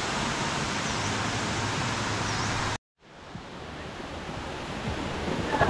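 Steady rush of a waterfall, with a couple of faint bird chirps. About three seconds in the sound cuts out abruptly for a moment, then the water noise fades back in more quietly.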